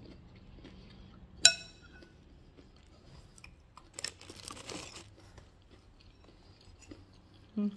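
A spoon clinks once against a soup bowl with a short ringing tone about one and a half seconds in. A second of crunching follows, around four seconds in, as a cracker is bitten.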